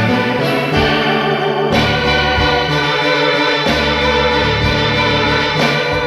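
Music: organ-toned keyboard playing held chords that change about every two seconds.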